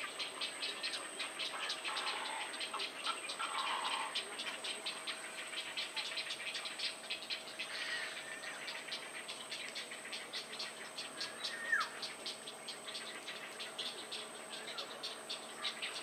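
Common hill myna giving a few short calls and one sharp downward whistle about twelve seconds in, over a fast, steady ticking chorus.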